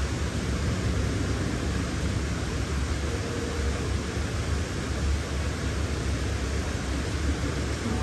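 Steady background noise: a low rumble with an even hiss over it and no distinct events.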